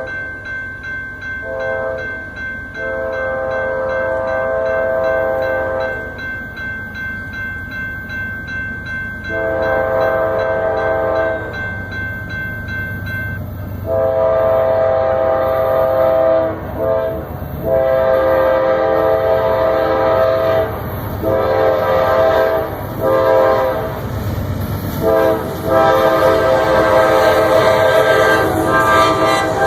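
A Nathan K5LA five-chime air horn on a CSX diesel locomotive blowing a long horn show: a string of blasts of varying length, some long and some short, with breaks between. A fast rhythmic ringing runs under the first half, and the train's low rumble grows louder from about halfway as it comes by.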